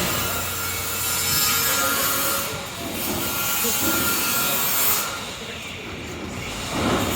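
Scraping and rubbing of a water heater being dragged and shifted across a platform, with a couple of brief lulls.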